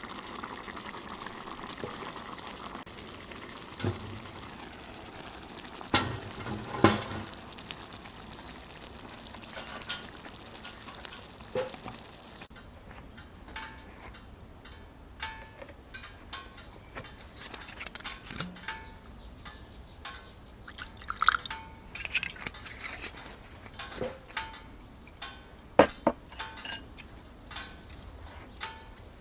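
Liquid simmering in a pan over a campfire for the first dozen seconds or so, then stopping. It is followed by many scattered clinks and taps of utensils against cookware and dishes.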